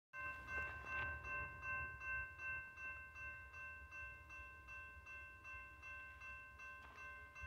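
Railroad crossing warning bell ringing steadily, just under two strikes a second, with a faint low rumble underneath.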